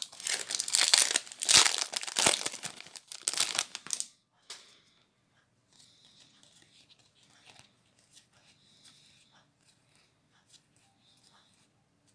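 Foil Magic: The Gathering booster pack wrapper being torn open and crinkled for about four seconds. Then faint soft rustles of the cards being slid one behind another in the hand.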